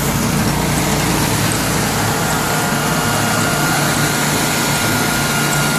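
Portable band sawmill's engine running steadily: a constant low hum with a hiss and a faint steady high whine.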